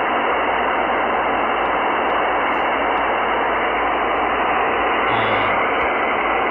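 POCSAG pager data on the 26 MHz band, received on a software-defined radio in upper sideband: a steady, even rushing hiss with no voice in it. The busy signal is a sign the band is open.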